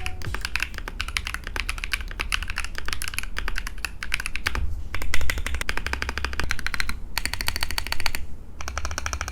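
Fast typing on a custom 60% mechanical keyboard: a dense, steady stream of key clicks with a couple of brief pauses near the end. The keyboard has a semi-transparent resin case, ASA-profile keycaps with O-ring dampeners, and lubed pink tactile switches fitted with 45 g springs.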